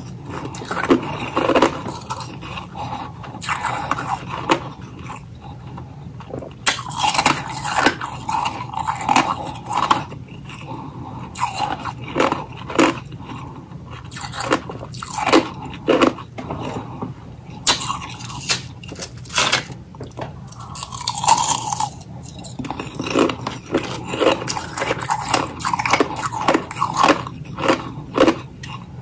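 Close-miked chewing of freezer frost ice: irregular crisp crunches, thick at times, with brief lulls between mouthfuls.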